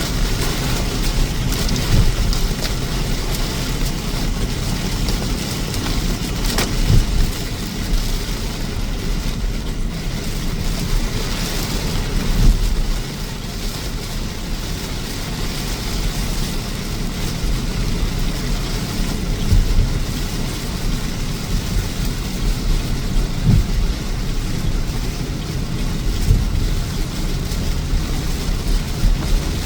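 A car driving on a flooded, wet road: a steady rumble and hiss of tyres and water, with occasional thumps.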